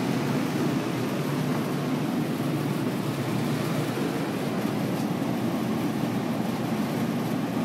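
Walk-in cooler's refrigeration fans running with a steady, even drone.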